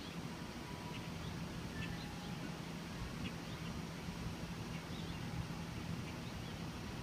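Outdoor ambience: faint, scattered short bird chirps over a steady low hum.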